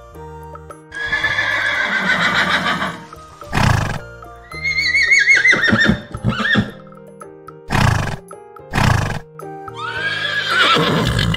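A horse whinnying three times, each call high and quavering, the middle one falling in pitch, with short snorts in between, over a light background tune.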